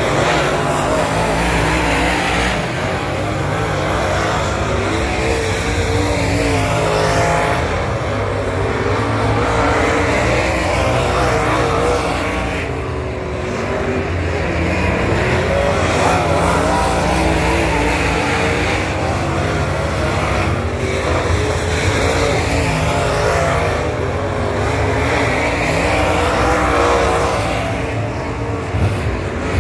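Super late model dirt-track race cars' V8 engines at racing speed, rising and falling in pitch through the corners and straights. The sound swells and fades every several seconds as the cars come past and go around the far side of the oval.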